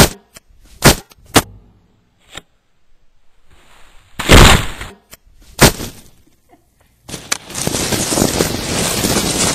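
Foam packing peanuts rustling and clattering right against the camera's microphone as it is pushed down into a box of them: a few sharp knocks, a loud scraping burst about four seconds in, then a dense steady rustle from about seven seconds on.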